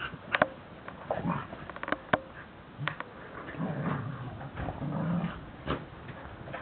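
Border collies play-wrestling, growling in low rumbles, with a few sharp clicks between the growls.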